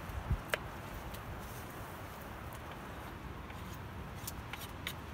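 A knife chopping carrots on a wooden cutting board: one sharp knock about half a second in, then a few faint taps near the end, over a steady low background noise.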